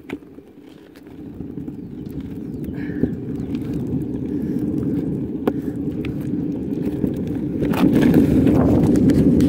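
Plastic wheels of a three-wheeled Y Glider Deluxe kick scooter rolling over cracked asphalt: a low rumbling noise that grows steadily louder through the first few seconds, with a few sharp clicks from bumps in the pavement.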